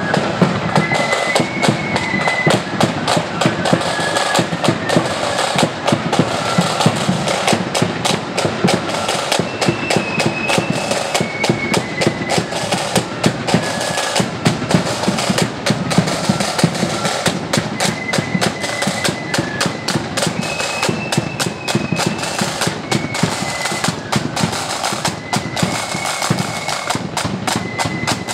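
Marching flute band playing a tune on flutes over rattling side drums and a bass drum beating time.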